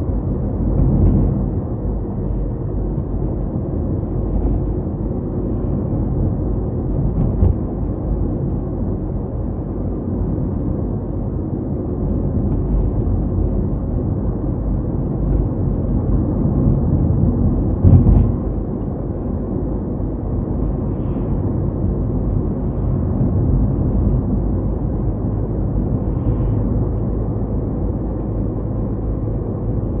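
A car driving along a road: a steady low rumble of tyres and engine, with a sharp thump about 18 seconds in and a few faint ticks.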